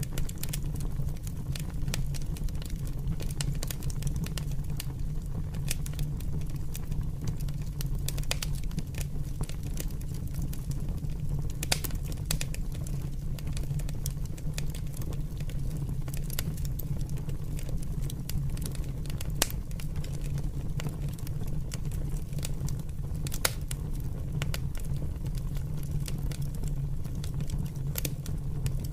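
Large open fire burning: frequent irregular crackles and sharp pops over a steady low rumble, with a few louder pops scattered through.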